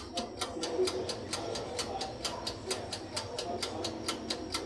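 Gas oven's electric spark igniter clicking rapidly and evenly, about seven clicks a second, as the oven is being lit.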